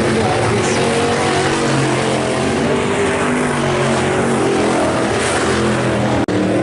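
A field of IMCA Hobby Stock race cars running together around a dirt oval, several engines overlapping at a steady loud level with their tones shifting as the cars pass. The sound cuts out for an instant near the end.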